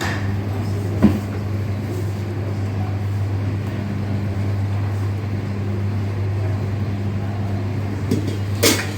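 Steady low machine hum from kitchen equipment, with a single sharp knock about a second in and a short clatter near the end.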